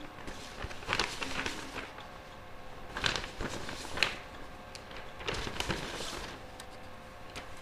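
Soft, irregular rustling and shuffling in short bursts, such as exam papers being handled at desks, over a faint steady hum.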